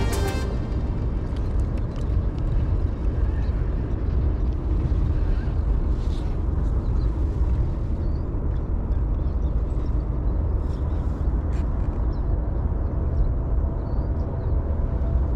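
Steady low outdoor rumble, with faint distant voices and a few light clicks.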